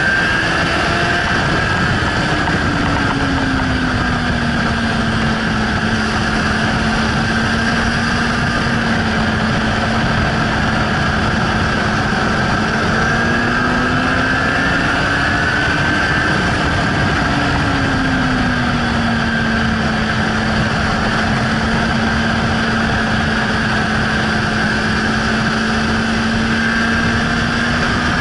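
Suzuki GSR 600's inline-four engine running hard on track at steady throttle. Its note drops a couple of seconds in, rises and falls again around the middle, and climbs again near the end. A steady rush of wind noise runs underneath.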